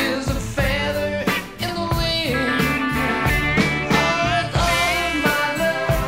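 Rock song with guitar notes bending in pitch over a steady drum beat.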